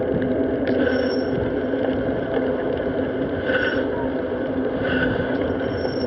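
Steady rush of wind buffeting and tyre noise on a moving camera while riding along a road. Four short, faint high ringing tones come and go about a second and a half apart.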